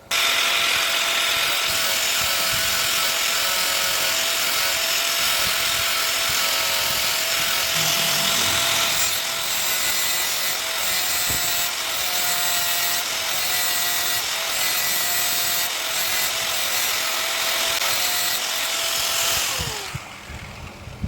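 Electric sharpening grinder running steadily with a harsh grinding hiss as it grinds the cutting parts of a meat mincer, its motor hum holding one pitch. Near the end the motor is switched off and its pitch drops as it winds down.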